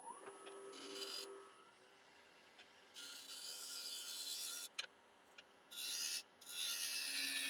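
A 1-inch scraper cutting across the outside of a spinning walnut bowl blank on a wood lathe, in several separate scraping passes: one about a second in, a longer one from about three seconds, and another in the last second and a half.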